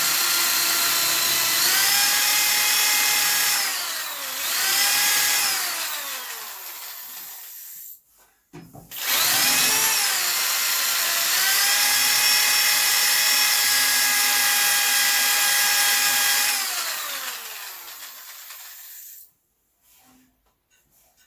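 Electric drill spinning a brass wire brush, its motor whine speeding up and slowing several times. It stops briefly about eight seconds in, starts again, runs steadily, then winds down to a stop near the end.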